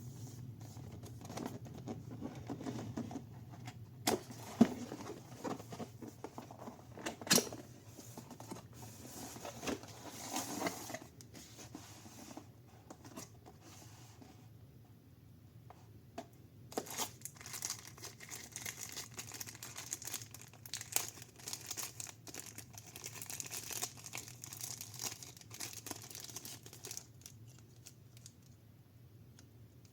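Packaging being unwrapped: plastic and paper rustling, crinkling and tearing, with scattered sharp clicks and knocks from the box and its contents.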